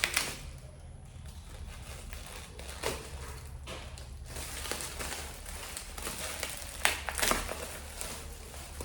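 Packaging being handled while a courier box is unpacked: scattered rustles and crinkles with a few sharper clicks, over a steady low hum.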